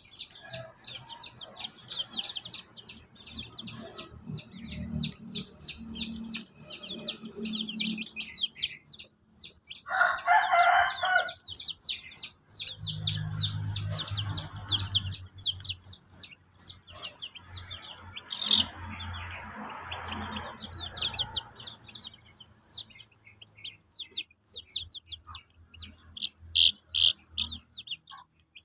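Young chickens peeping without a break, quick high cheeps about four a second, with a louder, harsher call about ten seconds in.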